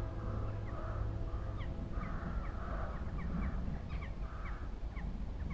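Distant animal calls: a run of short, harsh calls, one every half second to a second, with faint, short, high chirps between them, over a steady low rumble.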